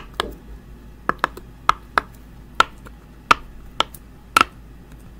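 Bubbles of a silicone pop-it fidget toy being pressed through one at a time, each giving a sharp little pop: about a dozen unevenly spaced pops, roughly two a second.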